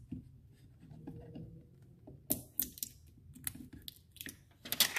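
Scattered light clicks and taps from a hand working at a wall-mounted thermostat and the plate above it, with a sharper click near the end.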